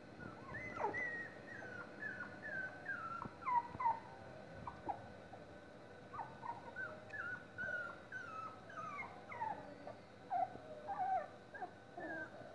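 A litter of 25-day-old miniature schnauzer puppies whimpering and squeaking: many short high cries, each falling in pitch, in quick irregular succession, with a short lull about halfway.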